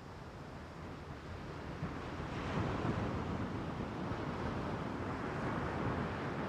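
Sea surf breaking and washing onto a sandy beach, a steady wash that swells louder a little over two seconds in.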